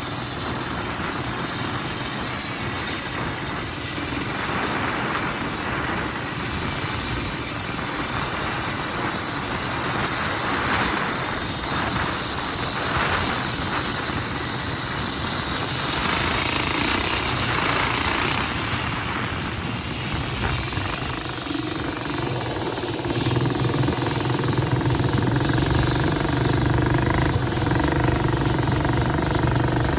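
Large diesel farm machine running steadily under load, its engine note growing louder and stronger about three-quarters of the way through.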